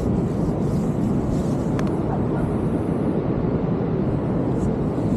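Ocean surf rumbling steadily: a continuous low rumble with no breaks.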